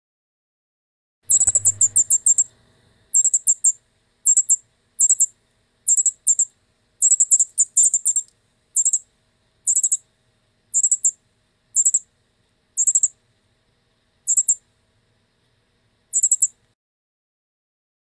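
Young northern cardinal calling: short bursts of rapid, high chirps, about one burst a second, starting about a second in, with the gaps widening and the calls stopping a little before the end.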